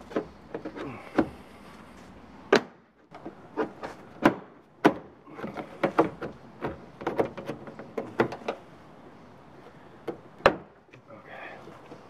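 Sharp plastic clicks and knocks, a dozen or so at uneven intervals, from a Toyota 4Runner's hatch trim panel being pried and worked loose with a plastic trim removal tool; the loudest snaps are its retaining clips popping.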